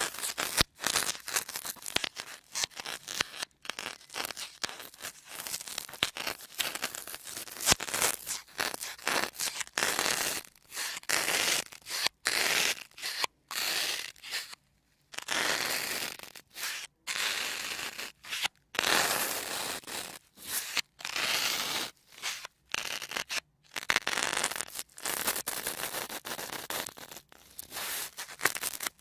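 Sponges squeezed and crushed close to the microphone, making crisp crackling and scrunching in irregular bursts with brief pauses between squeezes.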